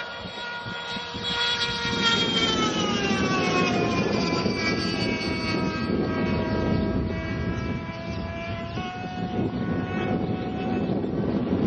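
Ducted-fan RC jet, a Nelson 91R two-stroke glow engine driving a Firejets 5-inch fan, flying past at speed. Its high whine swells about two seconds in and falls in pitch as it passes, holds steady, then steps up and rises in pitch again near the end.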